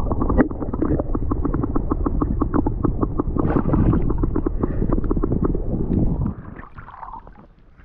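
Muffled water sloshing and bubbling heard through a camera held under the lake surface: a dull rumble with a dense patter of small pops. It drops away about six seconds in, when the camera comes back out of the water.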